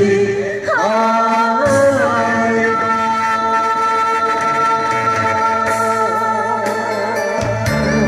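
A woman and a man singing a duet through handheld microphones over backing music, with one long note held steadily in the middle.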